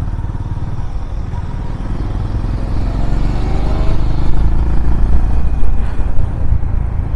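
Motorcycle engine running under way, its pitch rising as it accelerates from about two and a half seconds in, with the loudness climbing toward the end.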